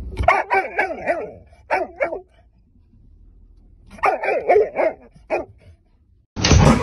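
A large dog barking from the back of a car: a quick run of barks, two more, a pause, then another quick run and a single bark. A loud rushing noise starts just before the end.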